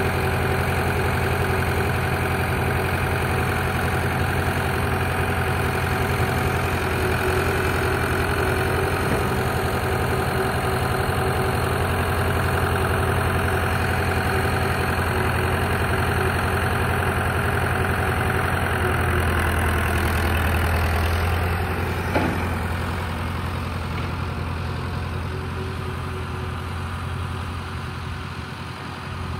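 Massey Ferguson 175 tractor engine running steadily, growing fainter over the last several seconds as the tractor drives away. A single sharp knock sounds a little past two-thirds of the way through.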